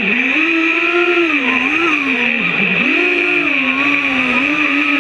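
Brushless 2206 2400KV motors of a 5-inch FPV racing quadcopter whining as heard from its onboard camera, the pitch rising and falling with the throttle. About halfway through the whine drops sharply and then climbs back, over a steady high hiss of propellers and rushing air.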